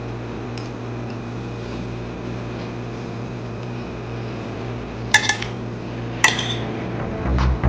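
A metal spoon clinks twice against a ceramic plate while scooping food, over a steady low hum.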